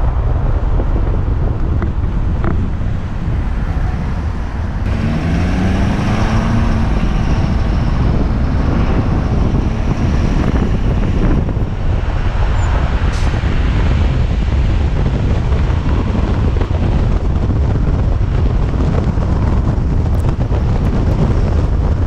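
Inside the cab of a 2015 Ford F-350 dually pickup on the move: a steady low engine and road rumble with wind noise, and a brief rising engine note about five seconds in.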